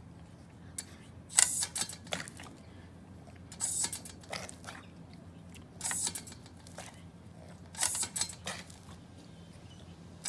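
A small dog biting and snapping at a hose-fed sprinkler pad, heard as four clusters of short crunchy crackles about two seconds apart.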